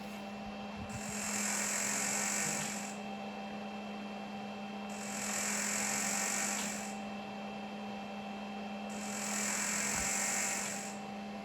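A small electric device running with a steady hum, and a high hiss that switches on for about two seconds out of every four in an even cycle.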